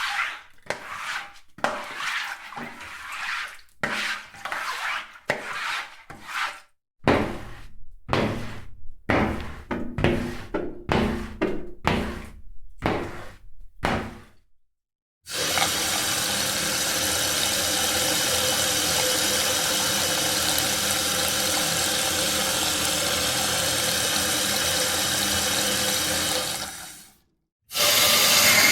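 Rain sound effects played in separate clips: first irregular bursts of splashing and dripping water, then after a brief silence a steady, even hiss of heavy rain that fades out, with another water clip starting near the end.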